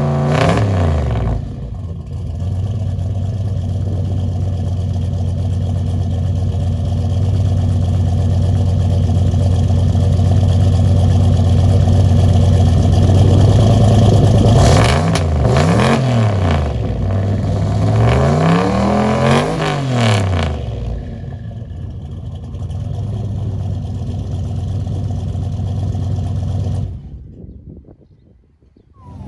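Turbocharged LS V8 truck engine breathing through a new full 4-inch exhaust, idling with a steady low drone and blipped into quick revs at the start, about halfway and about two-thirds of the way through. The sound drops away nearly to silence shortly before the end.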